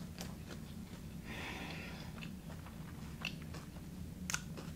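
Close-miked chewing of a mouthful of chicken salad with creamy dressing: soft wet mouth sounds and small clicks, with a short crunchier stretch about a second in and one sharper click near the end.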